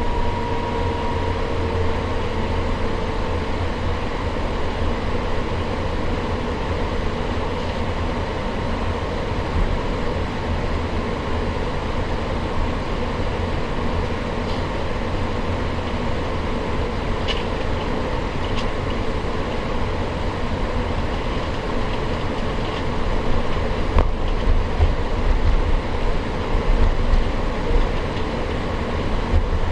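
Cabin noise inside an Airbus A350-900 on the ground before takeoff: a steady hum from its Rolls-Royce Trent XWB engines over a low rolling rumble. The rumble turns more uneven and bumpy for the last few seconds.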